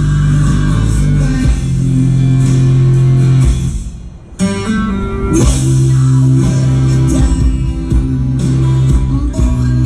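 Rock music with guitar and bass, dipping briefly about four seconds in before picking up again.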